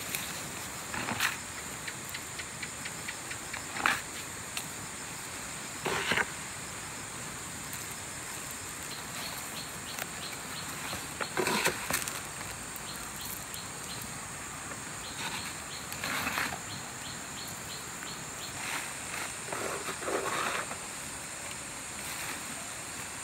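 Outdoor ambience: a steady high hiss, with short swishing strokes every few seconds and a run of quick faint ticks in the middle.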